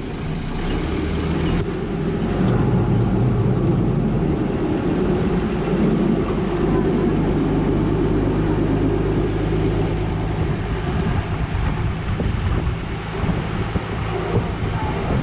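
Small motorboat's engine running under way, with wind and water noise; the engine gets louder about two seconds in as the boat speeds up.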